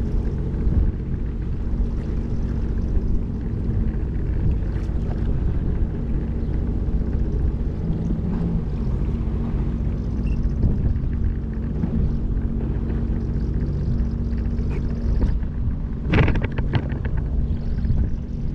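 Jet ski engine running at low, idling speed as the craft moves slowly across the water, a steady low drone. A brief rattle of knocks comes about sixteen seconds in.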